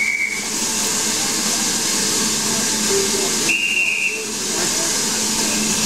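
Steam locomotive venting steam with a loud, steady hiss. A short high whistle tone sounds at the start and a longer one about three and a half seconds in.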